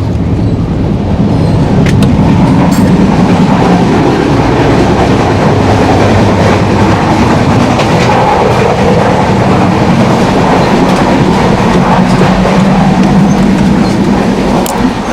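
Passenger train running at speed: a loud, steady rumble and rattle of wheels on the rails, with a few sharp clicks.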